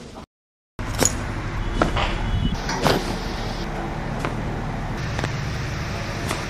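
A series of sharp, short cracks, about one a second at uneven intervals, over a steady low hum: joints popping during chiropractic spinal and neck adjustments. The sound cuts out completely for a moment just after the start.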